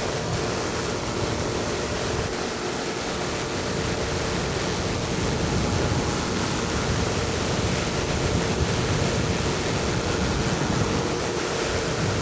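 Mainair Blade flex-wing microlight's engine and propeller running steadily, with air rushing past the microphone in a constant drone.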